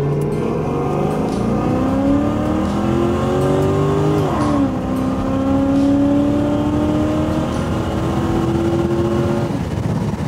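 LS V8 in a 1972 Chevrolet Monte Carlo accelerating hard, heard from inside the cabin. The engine note climbs for about four seconds, drops sharply as the automatic transmission upshifts, then climbs again and drops once more near the end.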